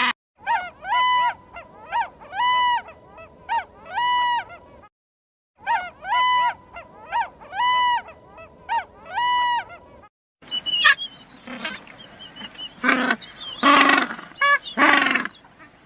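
Animal calls: a run of short, pitched, honk-like calls in an alternating short-long pattern, played twice with a short silence between. About ten seconds in, a different, harsher series of calls follows.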